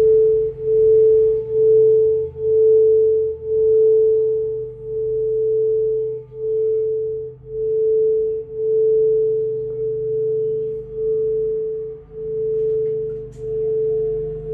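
Metal singing bowl sung by rubbing a padded wooden mallet around its rim: one steady, clear ringing tone with a faint higher overtone, swelling and dipping about once a second with each pass of the mallet.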